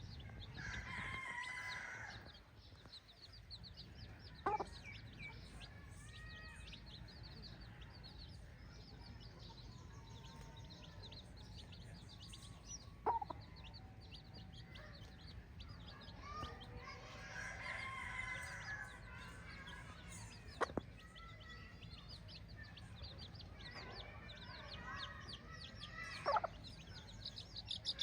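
Chickens: roosters crowing three times, about a second in, midway and near the end, with short sharp clucks between. A steady high-pitched chirping runs underneath.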